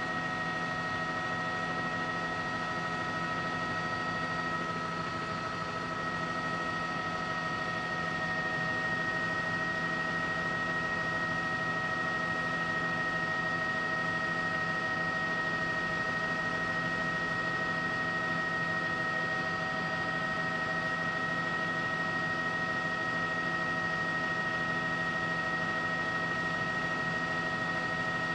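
Steady hum and hiss with several constant high whining tones, unchanging throughout.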